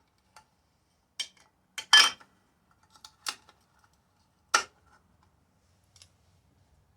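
A handful of separate sharp clicks and knocks as small hard parts and tools are handled and set down, the loudest about two seconds in and another strong one just past four and a half seconds.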